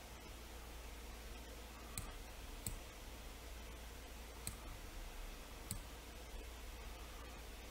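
Four sharp computer-mouse clicks at uneven intervals over a faint steady hiss and low hum.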